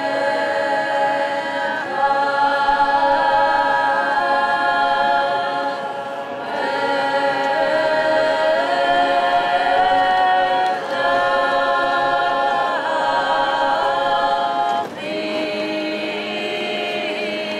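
Women's choir singing a traditional Georgian polyphonic song a cappella: several voices hold sustained chords together, shifting to a new phrase every few seconds.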